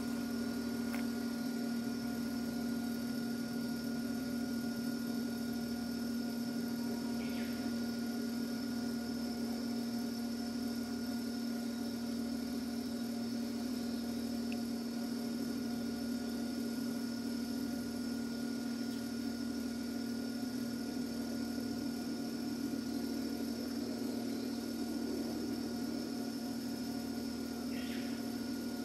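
Steady electrical hum from a stationary Hakone Tozan Railway 2000-series electric train, its auxiliary equipment running while it stands waiting. Two brief high chirps come about seven seconds in and near the end.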